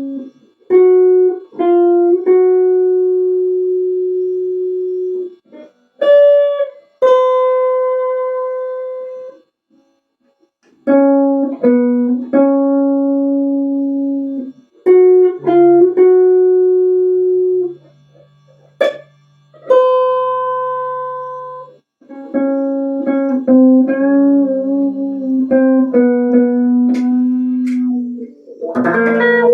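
Slow guitar playing: plucked notes and chords left ringing with long fading sustain, in short phrases separated by brief pauses, growing busier near the end.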